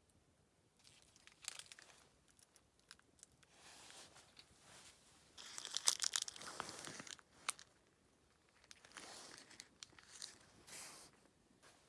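Crinkly material being handled close by: irregular rustling and crinkling in bursts, the loudest about six seconds in.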